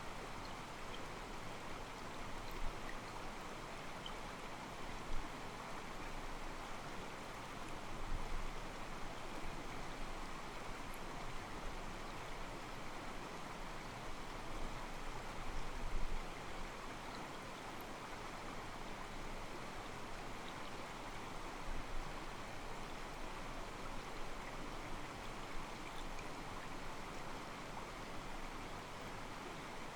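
Small mountain stream running over rocks, its water sloshing and gurgling in a steady, soft rush.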